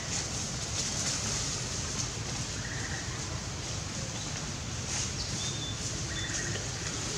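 Steady outdoor background hiss and low rumble, with a few short, high bird chirps about three, five and a half and six seconds in.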